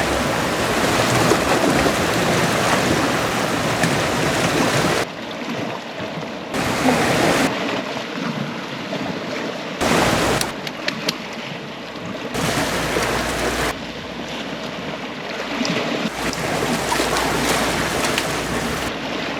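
Seaside noise of surf and wind on the microphone, a steady hiss that changes level and tone abruptly several times.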